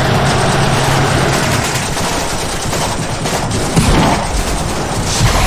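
Battle sound effects from an animated film's soundtrack: rapid, sustained gunfire. A low steady drone sits under it for the first second and a half, and a single sharp hit comes about four seconds in.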